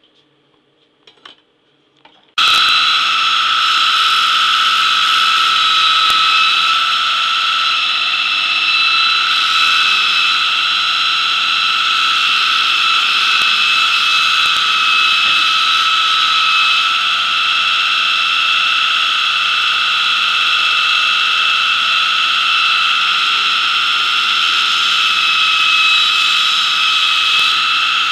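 Electric grinding machine's motor switching on abruptly about two seconds in, then running at a constant speed with a loud, high, steady whine over a rushing noise.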